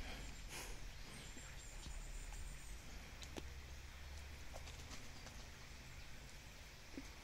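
Faint riverside ambience: a steady low rumble with a few soft, scattered clicks.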